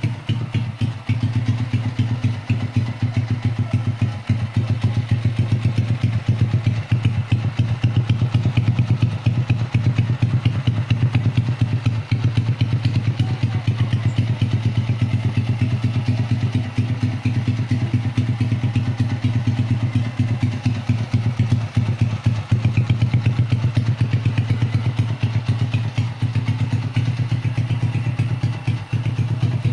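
Honda TMX 125 Alpha's single-cylinder four-stroke engine idling steadily through an aftermarket Leo Vince exhaust, with a deep, evenly pulsing exhaust note.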